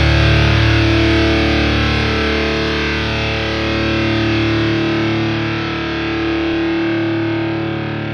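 Background music: a distorted electric guitar holding a sustained chord that slowly fades.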